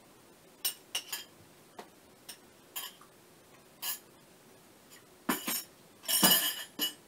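Scattered clinks of a spoon and dishes during eating, about a dozen short sharp clinks, with the loudest run about five to six and a half seconds in.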